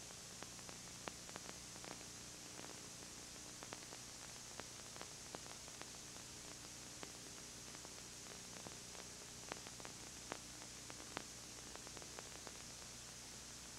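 Steady tape hiss over a low electrical hum, with scattered faint clicks and crackles: the noise floor of a soundless surveillance-tape recording, with no sound from the scene itself.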